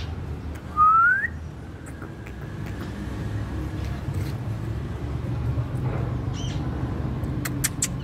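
A single short whistle rising in pitch about a second in, over a steady low background rumble.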